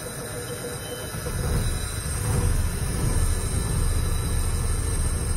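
Old Ford ten-wheel truck's engine being started with the key, heard from inside the cab: it cranks, catches about a second in, then settles into a steady low-pitched run.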